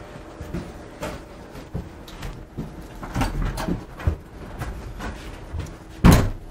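Scattered light knocks and rustling of hands and objects being handled on a workbench, with one louder thump about six seconds in.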